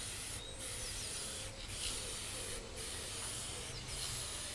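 Aerosol spray can of gloss lacquer spraying in a hiss, in passes of about a second each broken by four brief pauses.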